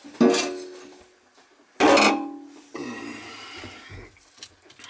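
Two sharp metal clangs about a second and a half apart, each ringing briefly, as a rusted-out kitchen sink basket strainer is knocked and worked loose from the sink.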